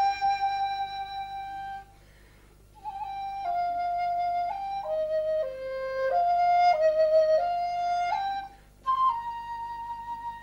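Background music: a flute playing a slow melody of long held notes, stepping up and down in pitch, with a pause about two seconds in and another brief one near the end.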